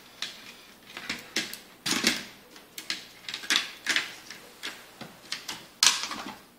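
Irregular light clicks and clatter of plastic and metal as a laptop motherboard is worked free and lifted out of its plastic base. A sharper knock comes near the end.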